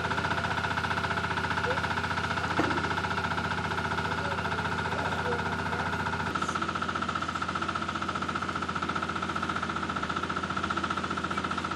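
An engine running steadily at an even pitch, its low end dropping off about six seconds in.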